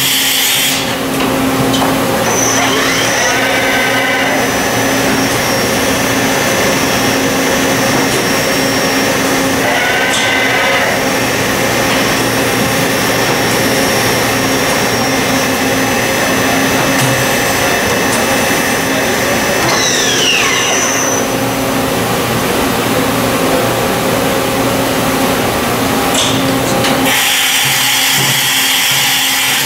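Matsuura MC-1500V vertical machining center running as its spindle head travels up and down: a steady mechanical hum and hiss. A high whine comes in about two seconds in, with brief gliding tones, then sweeps down in pitch and stops about twenty seconds in.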